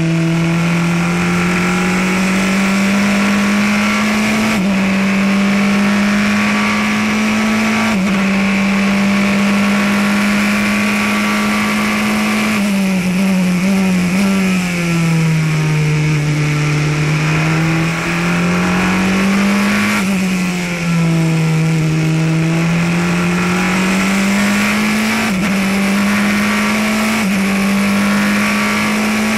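Praga R1T racing prototype's engine at racing speed, heard from the cockpit: pitch climbing under full throttle, cut by sudden upshifts twice in the first eight seconds. About halfway it drops in steps through downshifts under braking, then rises again through the corners, dips once more, and climbs with two more quick upshifts near the end.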